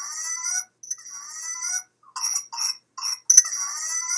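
A young infant's coughing fit: runs of short, sharp coughs broken by long, rising, high-pitched whoops as the baby draws breath, three whoops in all. This paroxysmal cough with an inspiratory whoop is the classic sound of whooping cough (pertussis).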